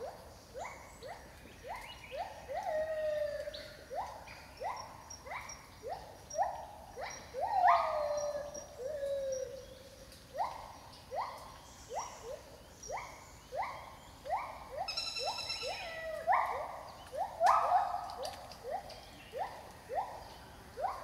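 A pair of gibbons singing in rainforest: a run of short hoots that rise in pitch, roughly two a second, broken now and then by longer notes that slide down in pitch.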